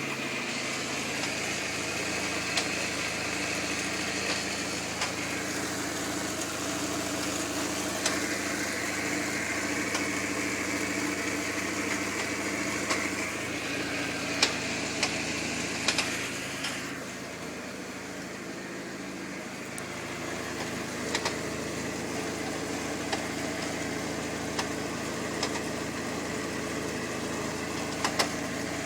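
Skoda Fabia's engine idling steadily with an irregular knocking, sharp knocks coming every few seconds. The knock is newly appeared and undiagnosed; forums put it down to the hydraulic lifters, the pistons or the oil.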